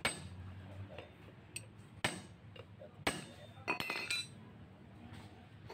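Hand tools clinking and tapping on the metal parts of a Toyota Lite Ace alternator during assembly: single sharp metallic taps about a second apart, then a quick run of ringing clinks about four seconds in.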